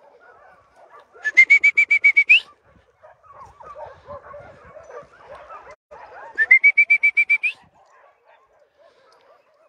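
A bird calling twice, each call a quick run of about ten identical notes at one pitch that turns upward at the end. Fainter, low rustling sound fills the gap between the two calls.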